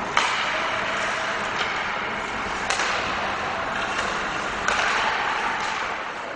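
Ice hockey play on a rink: skates scraping the ice under a steady hiss, broken by several sharp clacks of sticks and puck.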